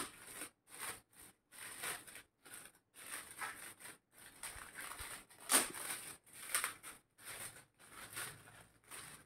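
Shiny metallic gift wrap crinkling and tearing as a small present is unwrapped by hand, in a run of irregular rustling bursts.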